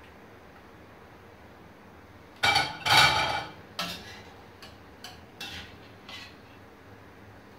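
A metal utensil clattering against a steel cooking pot as boiled beets are lifted out of it: a loud clatter about two and a half seconds in, then several lighter clinks.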